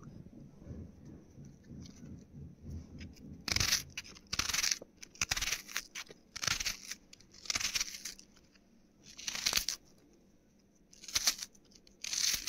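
Knife cutting through a peeled raw onion: about nine short cutting strokes at an uneven pace, beginning about three and a half seconds in, after a few seconds of quieter handling.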